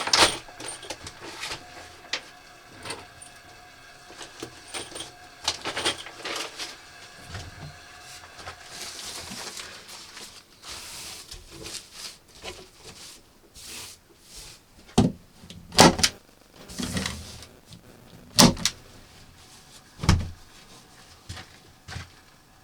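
A series of irregular knocks, taps and clatters, as of objects being handled and set down, with the sharpest knocks in the second half.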